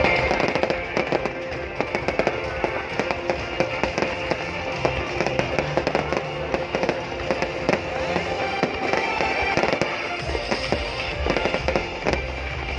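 A fireworks display: a dense, irregular stream of bangs and crackles from aerial shells going off, with music playing underneath.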